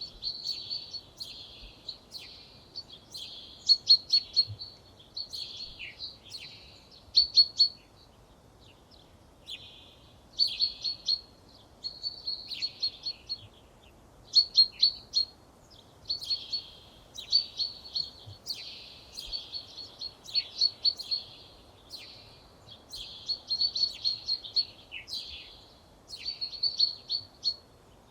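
Songbirds singing short, high-pitched phrases one after another, about one every second and a half, with a pause of about two seconds near the middle.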